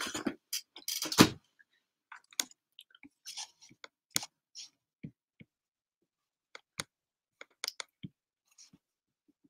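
Scattered light clicks, with a brief louder rustle about a second in.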